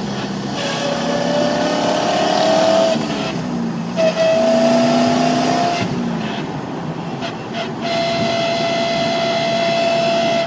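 Corvette C5 driveline whine while driving: a high, steady whine over the engine and road noise that rises slightly in pitch as the car gathers speed, coming in three stretches with short breaks between. The whine follows road speed rather than engine rpm, and persists after a rear differential change with transmission oil tested as fine.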